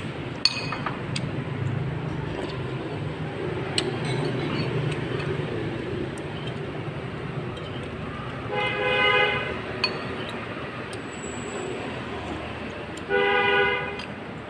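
A vehicle horn honks twice, each honk a steady tone of about a second, the second about four seconds after the first, over a steady hum of street traffic. A few light clicks sound in between.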